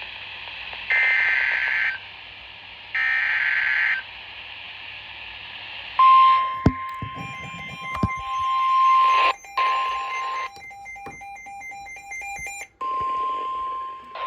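NOAA Weather Radio alert signal over radio hiss: buzzy SAME digital header data bursts, the last ending about four seconds in. From about six seconds in comes the steady 1050 Hz warning alarm tone, which drops out twice and returns near the end, overlapped for a while by a fast, evenly repeating electronic beeping.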